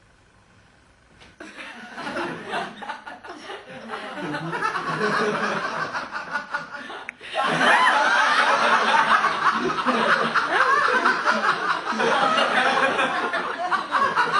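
Audience laughter. It breaks out about a second and a half in and grows, drops out for a moment about seven seconds in, then goes on louder and sustained.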